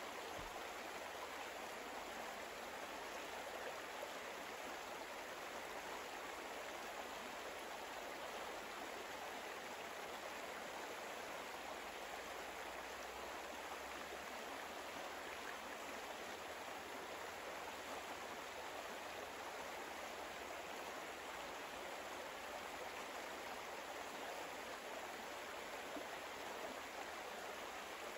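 Steady, even rush of flowing water, a stream ambience.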